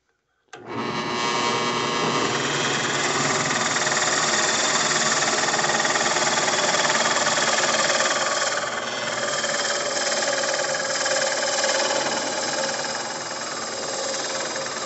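Drill press starting up about half a second in and running steadily as its bit bores down into a turned cedar blank.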